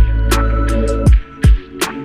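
Background music with a heavy beat: a held deep bass note that cuts out about a second in, booming kick drums that drop in pitch, and sharp drum hits over them.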